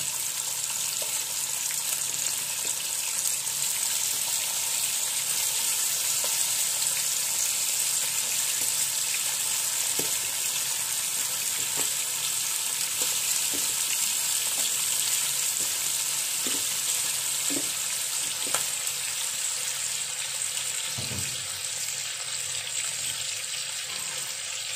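Marinated chicken pieces sizzling as they fry in hot mustard oil on full flame, a steady hiss with a few light knocks now and then.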